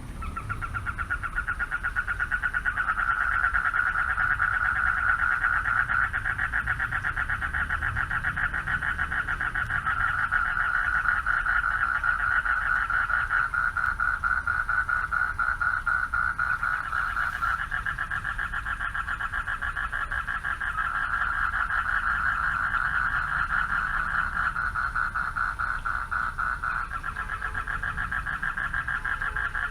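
A chorus of male frogs calling for mates at a pond, many overlapping fast-pulsed trills that run on without a break.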